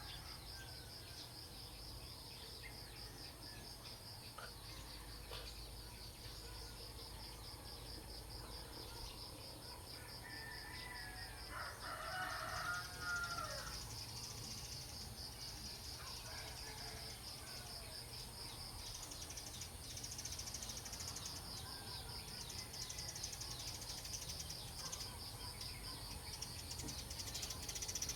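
A rooster crowing once, about halfway through, over a steady, fast-pulsing chirping of insects such as crickets.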